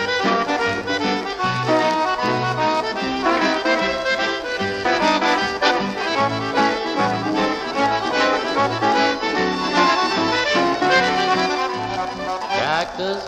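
Instrumental break of a western cowboy song, a melody over a steady bass line, with sliding notes near the end.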